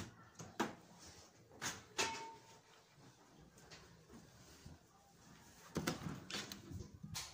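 A door being opened: a handful of separate clicks and knocks with quiet room tone between them.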